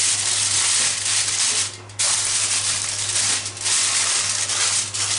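Aluminium foil crinkling and rustling as hands press and crimp it down around the rim of a pot, pausing briefly just before two seconds in.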